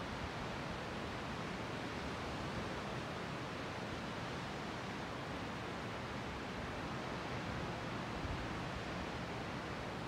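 Steady wash of sea surf: an even, unbroken hiss with no single wave standing out.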